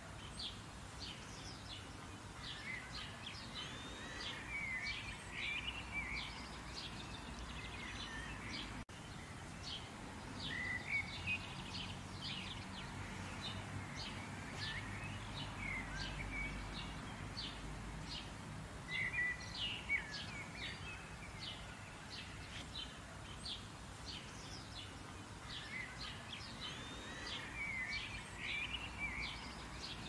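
Light rain with songbirds singing over it: a soft steady hiss of rain under many short high chirps and twittering, warbling phrases from several birds throughout.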